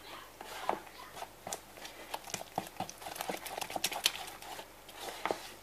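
Wooden spoon stirring a semolina-and-kefir mixture in a plastic bowl, knocking and scraping against the bowl in quick, irregular clicks.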